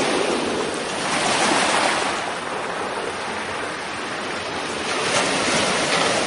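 Small waves surging and washing onto a sandy beach: a steady rushing that eases in the middle and swells again near the end.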